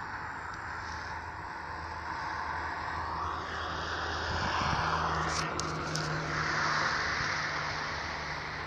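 A road vehicle passing, its noise with a gliding pitch swelling to a peak about five to seven seconds in and then easing off.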